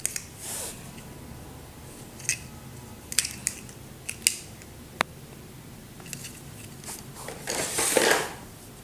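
Handling noise from a plastic neckband earphone headset and its cable: a string of sharp little clicks, then a longer rustle near the end.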